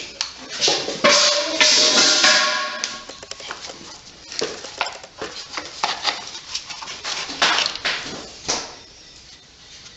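Metal engine parts and tools clinking and knocking during disassembly around the clutch, with a brief ringing, squealing sound about one to three seconds in.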